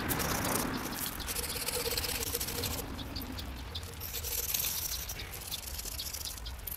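Sticks of chalk and soft pastel scraping over asphalt, with fingertips rubbing and smudging the chalk powder: an irregular, scratchy rubbing.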